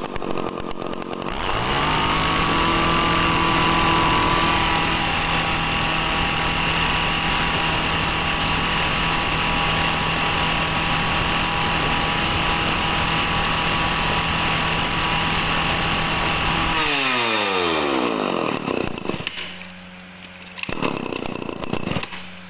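Shindaiwa 351 two-stroke chainsaw, a small horizontal-cylinder saw of about 35 cc, revved up from idle about a second in and held steady at high revs. Near the end the throttle is released and the revs fall away. The saw runs strongly, as a healthy engine should.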